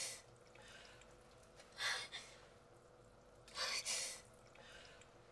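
A person breathing hard: two sharp, breathy gasps about a second and a half apart, over a faint steady hum.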